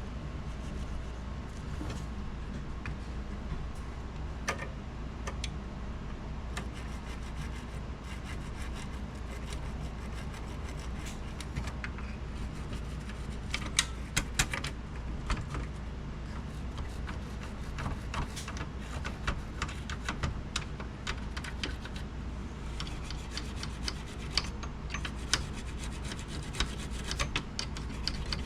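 Cleaning the tape-path guides and rollers inside a Memorex 4-head VCR by scrubbing them with alcohol: scratchy rubbing strokes and small clicks come and go, busiest about halfway through and over the last few seconds, over a steady low hum.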